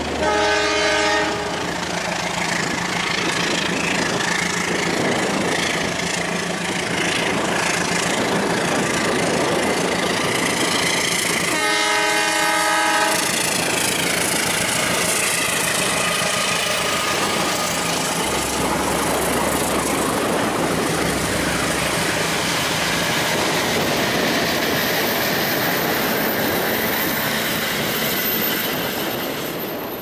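Toy CC 206 locomotive train set playing recorded train sounds as it runs: a horn blast at the start and another about twelve seconds in, over steady rail clatter and rumble.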